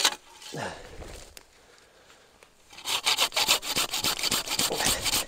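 Hand saw cutting through a small birch trunk in quick back-and-forth strokes, from about three seconds in; the soft wood cuts fast. It opens with a sharp knock and a brief sound falling in pitch.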